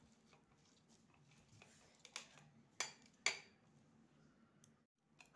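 Fingers crumbling and mashing a block of paneer in a stainless-steel bowl: faint squishing with three sharp clicks against the metal in the middle, the last the loudest, over a faint low hum.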